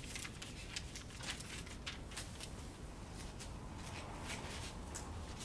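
Pages of a Bible being leafed through: faint, irregular paper rustling made of many short, soft crinkles.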